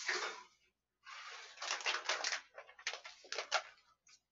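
A short rush of running water ends about half a second in. Then a thin plastic bag crinkles and rustles in a run of short, crackly bursts.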